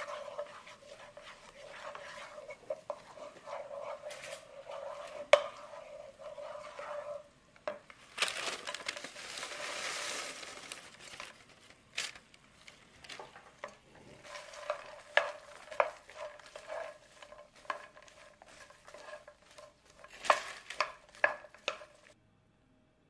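A wooden spatula stirring sugar as it cooks to a light caramel in a hot frying pan, with a steady sizzle. About eight seconds in, popcorn is tipped into the pan with a rush of rustling, then stirred through the caramel, the spatula knocking and scraping against the pan; the sound cuts off abruptly near the end.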